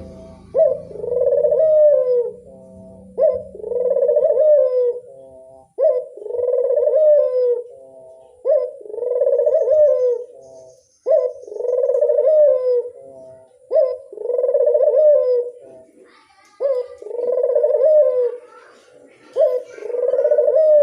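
A burung puter (Barbary dove) cooing over and over: each call is a short clipped note followed by a longer rolling coo, repeating about every two and a half seconds.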